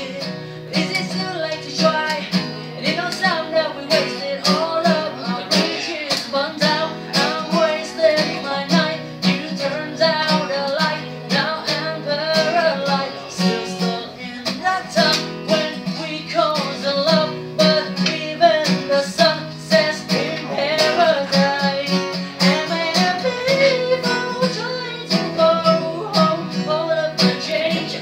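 Acoustic guitar strummed steadily, with a voice singing the melody over it.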